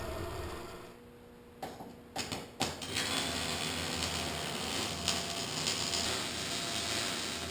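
A steady machine hum fades out within the first second. After a few sharp clicks, a MIG welder's arc crackles steadily from about three seconds in.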